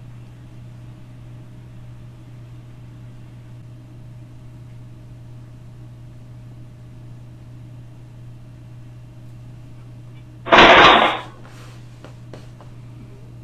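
A steady low hum with faint hiss, broken about ten and a half seconds in by one sudden, loud burst of noise lasting under a second, followed by a few faint clicks.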